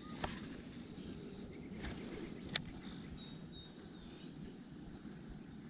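Insects trilling steadily in the grass, with a single sharp click about two and a half seconds in.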